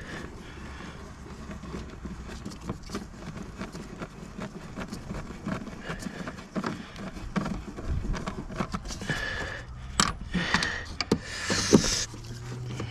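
Gloved hands handling plastic parts at a car's cowl and cabin air filter: scattered clicks, taps and rustling. The handling gets busier near the end, with a couple of sharper knocks.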